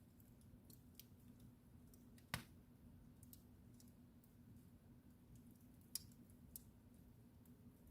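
Wood fire crackling in a fireplace: quiet scattered ticks with sharp pops, the loudest about two and a half seconds in, another about six seconds in, over a faint low hum.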